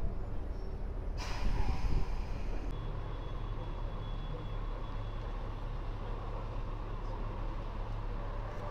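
City street traffic: a steady low rumble of passing vehicles, with a short loud hiss about a second in.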